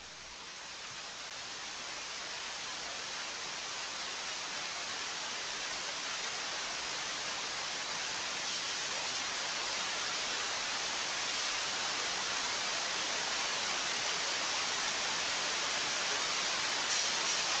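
A steady, even hiss like static, slowly growing louder, with no voice or music in it.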